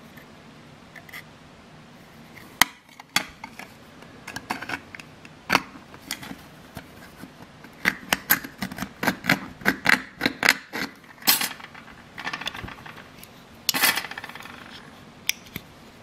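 Sharp metallic clicks and clacks of a Leatherman Bond multi-tool being handled, coming irregularly at first, then in a quick run of two or three a second through the middle. Near the end comes a brighter metal clatter that rings for about a second.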